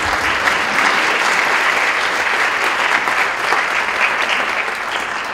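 Audience applauding, dense clapping that tapers off near the end.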